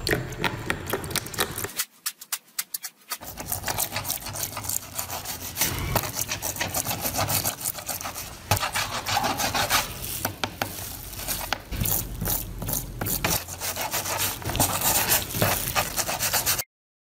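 A small stiff brush scrubbing rusty screws and a metal bushing in water in a plastic dish, in quick back-and-forth strokes, with a short pause near the start. The scrubbing cuts off suddenly near the end.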